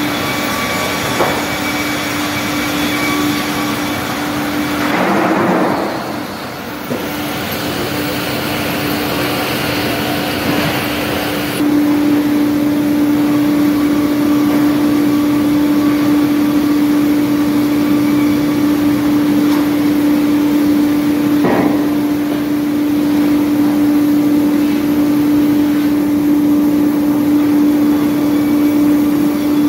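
Sawmill canter line running: the PR BG 35-45's twin-motor circular-saw machine and its chain and roller conveyors give a steady loud hum over a rush of machine noise. The noise swells briefly about five seconds in and steps louder at about twelve seconds, with a single knock a little past twenty seconds.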